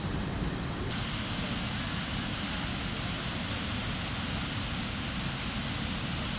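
Water gushing out of a concrete dam outlet and pouring into a river: a steady rushing that starts abruptly about a second in. Before it, a low rumbling noise.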